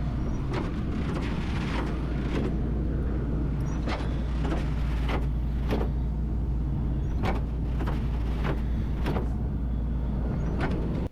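Truck diesel engine running steadily while a walking-floor trailer unloads silage, with light clicks every half second to second over the hum.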